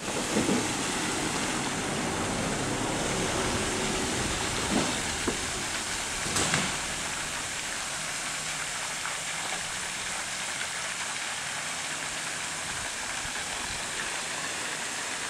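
Steady outdoor background hiss, with a low rumble during the first six or seven seconds and a few soft knocks, the loudest about six and a half seconds in.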